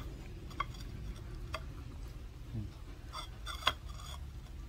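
Puppy eating vegetables off a plate: scattered sharp clicks and crunches of chewing and mouth noises, the loudest about three and a half seconds in.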